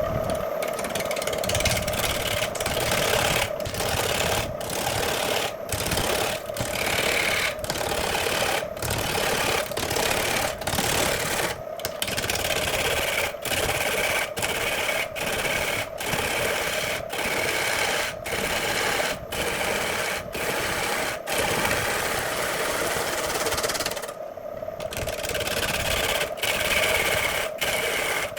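Electric power tool motor running steadily at a constant high hum, with workpiece noise over it, broken by short gaps about once a second.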